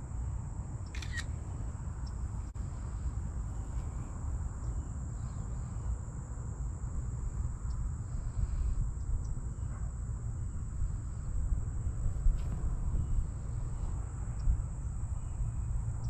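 Insects droning steadily at one high pitch, over a louder low rumble on the microphone, with a few faint clicks and rustles.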